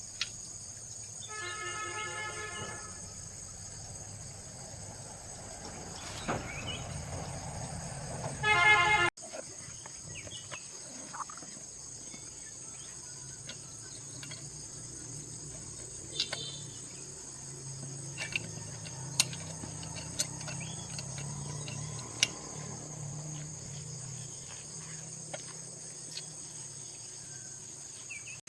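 Crickets chirring steadily while a horn honks twice: a longer honk about a second and a half in, and a short, louder one around nine seconds. Scattered small clicks and knocks come through as well.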